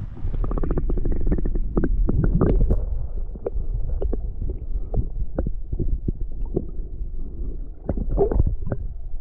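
Muffled rumble of moving river water, overlaid with frequent irregular clicks and knocks.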